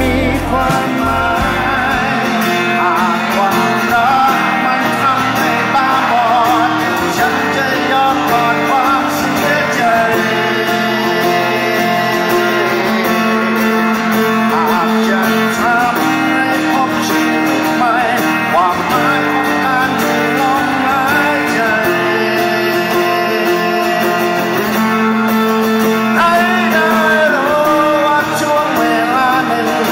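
Live male vocal singing a slow ballad over a strummed acoustic guitar, with the deep low end dropping away about two seconds in.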